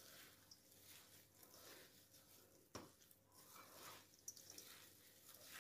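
Faint, irregular rustling and crinkling of dried tofu-skin strips being tossed by a gloved hand in a stainless steel bowl, with a couple of soft clicks.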